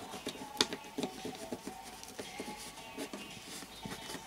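Aluminium foil tape crinkling and crackling under fingertips as it is pressed down and smoothed, with one sharp crackle about half a second in. Faint music plays underneath.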